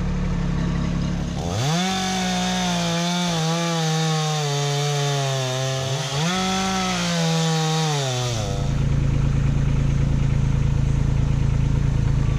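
STIHL two-stroke chainsaw revving up about a second and a half in and bucking a cherry log, its pitch sagging under load through the cut; it revs again for a second cut about six seconds in and stops near eight and a half seconds. Before and after the saw, a Kubota B2601 compact tractor's diesel engine idles steadily.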